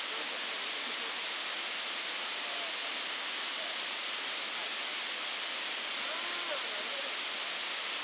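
Fukuroda Falls pouring into its plunge pool: a steady, unbroken rush of falling and churning water.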